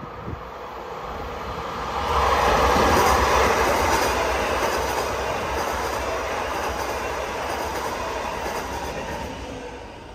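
Double-deck Transilien commuter train of VB 2N coaches passing through the station, the rumble and rattle of its wheels and coaches swelling suddenly about two seconds in, holding for several seconds and fading near the end.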